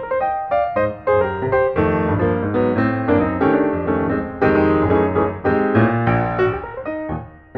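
Background music: piano playing a steady run of chords and melody notes.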